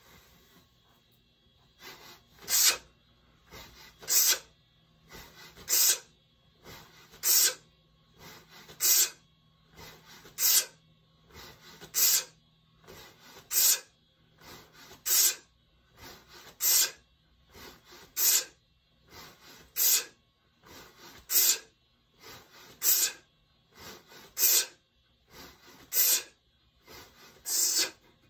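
Sharp hissing breaths in time with two-handed kettlebell swings: a loud exhale about every second and a half, each with a softer breath just before it, about seventeen in all.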